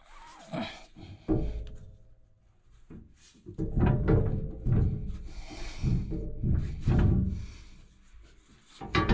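Heavy rotary-cutter (brush hog) blade being jerked back and forth on its mounting bolt under the deck, steel clunking and knocking against the blade carrier in irregular heavy knocks. The blade is stuck and is being worked loose by hand.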